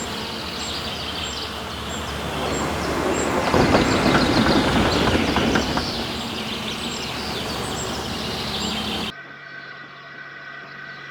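Dubbed train running sound: a rumbling, rattling rail run with regular clicks about twice a second, swelling louder in the middle. About nine seconds in it cuts off suddenly and gives way to a quieter, steady engine hum.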